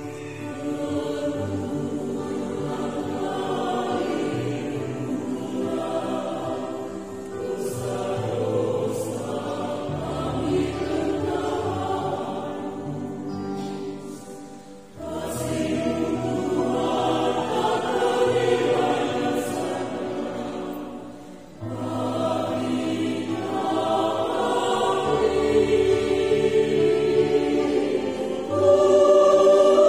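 Mixed choir singing an Indonesian sacred song in sustained chords, phrase by phrase with short breaks about halfway and two-thirds through, and swelling louder near the end.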